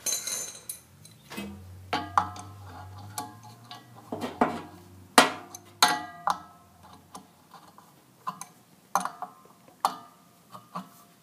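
Hand wrench clicking and clinking against the metal hub of an HVAC blower's squirrel-cage wheel as the hub nut is tightened onto the flat of the motor shaft: a string of irregular sharp metal clicks, each with a brief ring.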